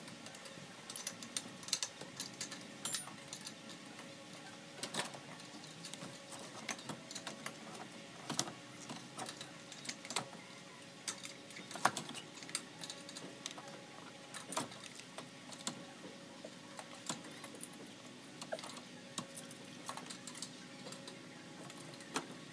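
Irregular light clicks and knocks of hand-work as a car radiator and its plastic fan shroud are handled and fitted into the engine bay, over a faint steady hum.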